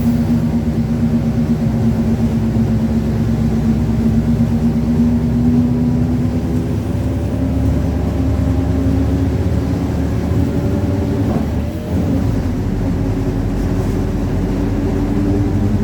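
Mercedes-Benz OF-1721 city bus under way, its drivetrain running with a steady droning growl from the rear differential whose pitch creeps up slightly with road speed. The level dips briefly about twelve seconds in, then the drone carries on.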